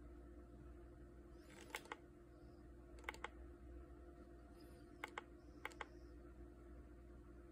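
Mode button on a cordless water flosser's handle pressed four times, each press a quick pair of small plastic clicks as it goes down and comes back up, stepping through the cleaning modes. Behind it there is only a faint steady hum.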